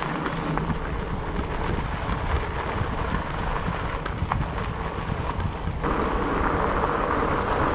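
Wind buffeting the microphone of a fat bike rider while he rides, with the rumble of the fat tyres rolling on the trail underneath. About six seconds in the hiss suddenly grows louder and brighter, as the bike picks up speed on a downgrade.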